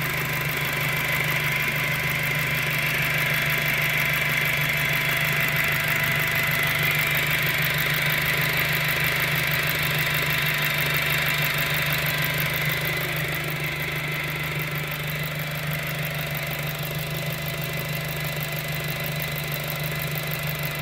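2007 VW GTI's 2.0-litre turbocharged four-cylinder idling with a steady moaning whine on top of the engine note, easing slightly about two-thirds of the way through. The whine is still there after a new timing belt, and its cause is unknown to the owner.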